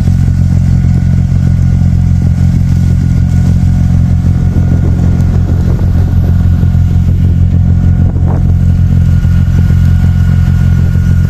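A large engine running close by at a steady, unchanging speed, loud and low-pitched.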